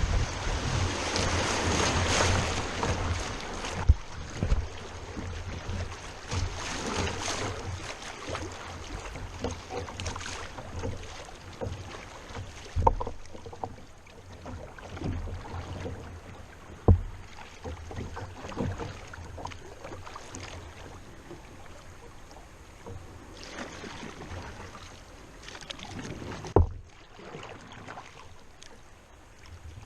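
Kayak being paddled down a river: the water noise of the paddle and hull is loudest in the first few seconds, then quieter. About four sharp knocks stand out along the way.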